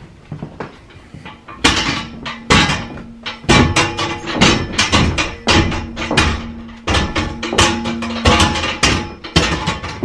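Red hand truck bumped down wooden stairs: a run of uneven knocks and thuds starting about two seconds in, with the metal frame ringing after many of them.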